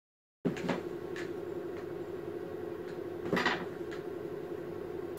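Quiet room tone with a steady low hum, starting about half a second in. Over it come a few light knocks and creaks from a person shifting on an office chair, the loudest about three and a half seconds in.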